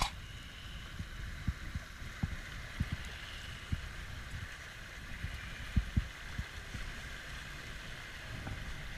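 River water rushing steadily past a raft, with a rumble underneath and a dozen or so irregular low thumps.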